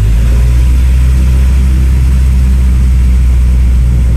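Cessna light aircraft's engine and propeller heard from inside the cabin: a loud, steady low drone as the plane rolls along the runway after landing.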